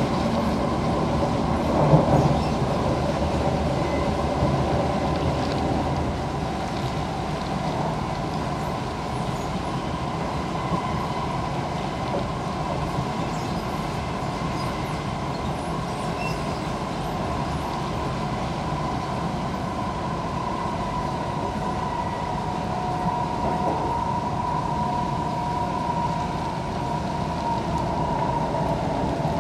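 Cabin sound of an SMRT C651 Siemens train running along the line: a continuous rumble from wheels and track, with a steady high whine over it. There is one knock about two seconds in.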